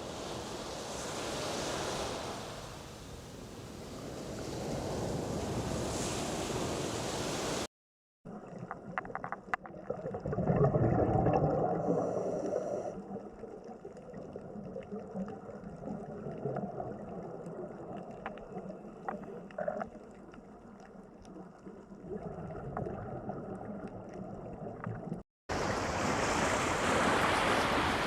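Ocean waves washing in and out, a rushing noise that rises and falls, broken by a hard cut to a quieter recording of scattered faint clicks and a brief swell of low rushing noise, then the waves again.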